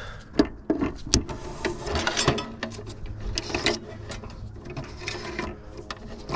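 Scattered metallic clicks, knocks and scrapes as wiring is cut and pulled out of a large air conditioner unit for scrap. A faint low hum comes in about halfway through.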